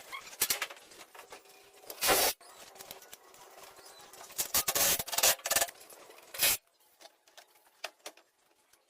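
Rubbing and scraping strokes in short bursts: one about two seconds in, a quick run of several around the middle, and a last one a little later.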